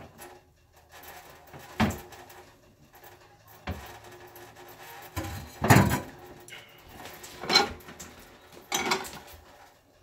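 Kitchen work sounds: a handful of separate knocks and clatters of utensils and wood on a counter, the loudest around six seconds in.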